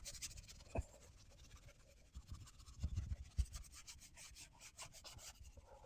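Faint scrubbing of the oven's interior: short rubbing strokes in irregular clusters, with a few soft knocks.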